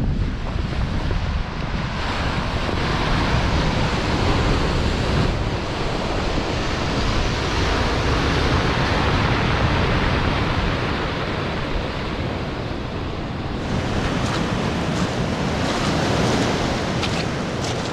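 Sea waves breaking and washing up a pebble shore, the surf swelling and easing, with wind buffeting the microphone. Near the end a run of short sharp clicks sounds over the surf.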